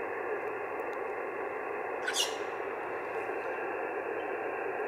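HF ham radio transceiver receiving on 20 metre single sideband, its speaker giving a steady band-noise hiss with no clear voice; a weak station is down in the noise. About two seconds in, a brief sharp chirp cuts through.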